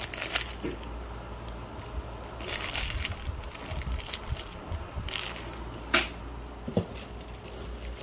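Small clear plastic bag of screws and a battery crinkling and crackling as it is handled in the hand, with a sharper crackle about six seconds in.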